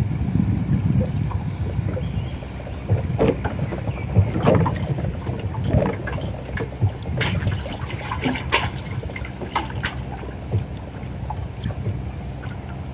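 A small fishing boat on the water: a steady low rumble, strongest in the first couple of seconds, with scattered knocks and clicks of gear being handled against the boat.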